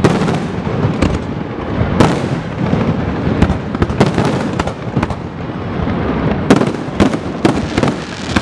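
Aerial fireworks display: shells bursting in quick succession, more than a dozen sharp bangs at irregular intervals over a continuous din of further bursts.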